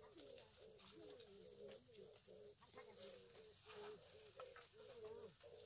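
Faint bird calls: short low cooing notes repeated several times a second, with light scattered ticks over them.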